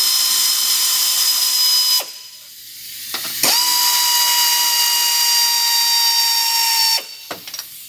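Pneumatic air ratchet running out the downpipe bolts: a steady whine with air hiss in two long runs, stopping about two seconds in and starting again a second and a half later, then cutting off near the end.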